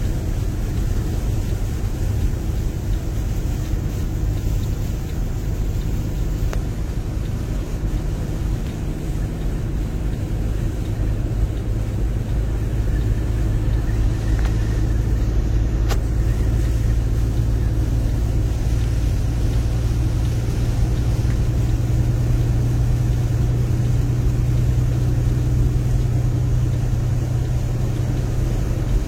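Steady engine and road drone of a moving vehicle on the highway, heard from inside the cab, a low hum that grows a little louder about halfway through.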